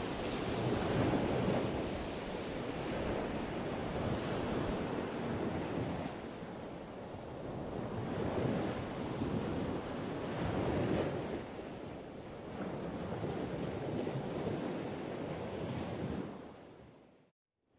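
Wind buffeting the microphone in gusts that swell and ease every few seconds, over a wash of sea water. The sound cuts out briefly near the end.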